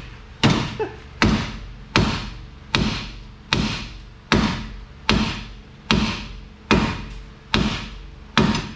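Hammer blows, about one every 0.8 seconds, on a seized rear strut assembly of a 2000 Ford Contour, each strike ringing briefly in the metal as the strut is knocked loose.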